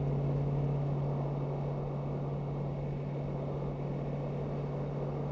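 Steady drone of vehicles cruising at highway speed: an even engine hum over tyre and road noise.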